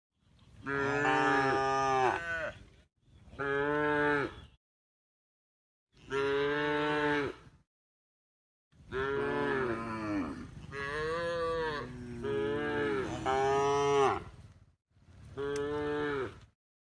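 Cows mooing: about seven long, pitched moos in a row, some bending up and down in pitch, with dead silence between the groups of calls.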